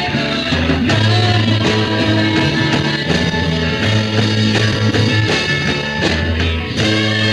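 A rock band playing live in a late-1960s psychedelic rock style: a moving bass line and regular drum hits under guitar.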